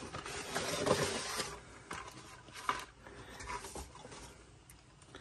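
Cardboard toy packaging being handled: the box and its printed sleeve rustling and sliding against each other, busiest in the first second and a half, then a few light taps and scrapes.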